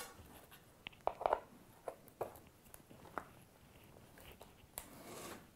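Allen key undoing a hex bolt on an SPD-SL cleat fixed to a road cycling shoe: faint, scattered clicks and scrapes of the metal key in the bolt head, with a short rustle of handling near the end.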